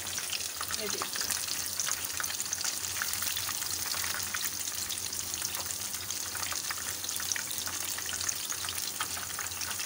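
Batter-coated fish pieces deep-frying in hot oil in a frying pan: a steady sizzle, dotted with many small crackles and pops.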